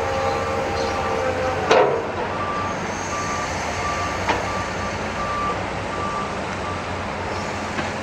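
Heavy construction machinery running with a steady engine hum, while a reversing alarm beeps repeatedly at an even pace. Two sharp metallic clanks cut through, the louder one just under two seconds in and a smaller one past the four-second mark.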